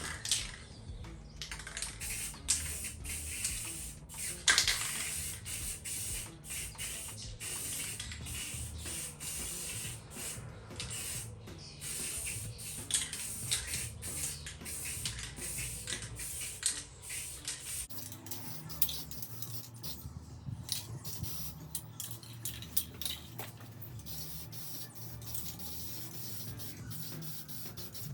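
Aerosol spray can of satin black paint spraying in repeated bursts: a hiss broken by many short pauses as the nozzle is pressed and released.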